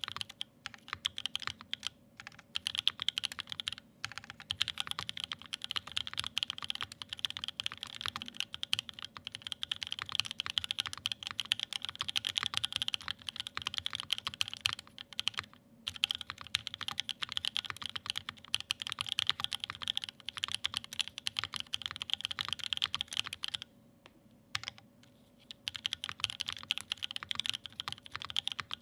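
Fast continuous typing on a Wilba.tech Thermal mechanical keyboard with Creamsicle switches lubed with Krytox 205g0 and filmed, GMK keycaps and an aluminium plate. Quick runs of keystroke clacks, with a pause of about two seconds late on.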